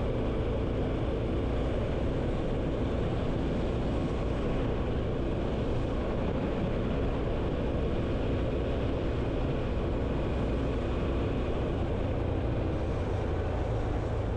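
Honda CT125 Hunter Cub's single-cylinder four-stroke engine running at a steady cruising speed, with wind and road noise from riding.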